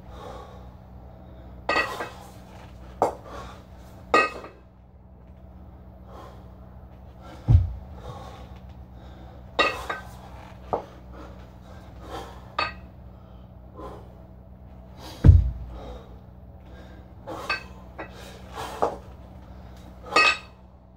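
Two kettlebells being lifted in a repeated clean and jerk. A dull low thump comes about every seven and a half seconds, three times. Between the thumps come short, sharp forced breaths and light clinks of the bells.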